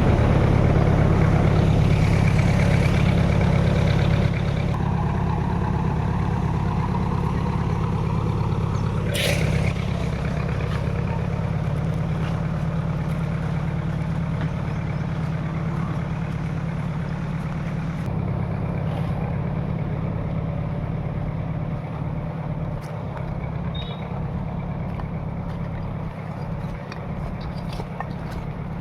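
Road roller's diesel engine running steadily, slowly growing fainter, with one sharp click about nine seconds in.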